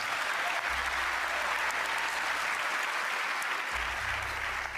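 Studio audience applauding steadily, starting to die down near the end.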